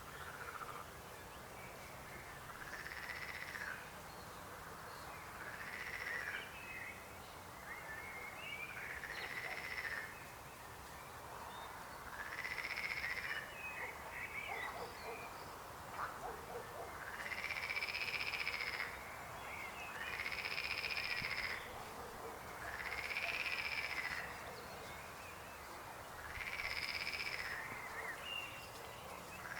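Frogs croaking: one call of about a second, rising and falling in pitch, repeats about every three seconds, with shorter calls in between.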